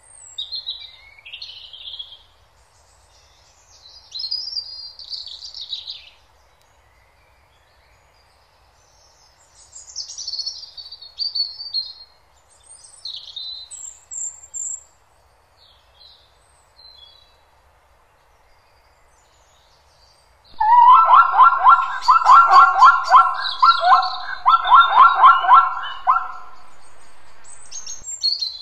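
Birds chirping and twittering on and off in high, short phrases. About 20 seconds in, a much louder, rapidly pulsed animal call runs for about six seconds, then stops.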